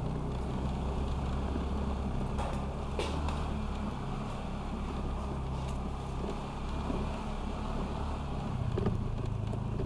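Honda Vario 125 scooter's single-cylinder engine running at riding speed, heard from a mount on the scooter, with wind and road noise over it. A couple of short knocks come through, about three seconds in and near the end.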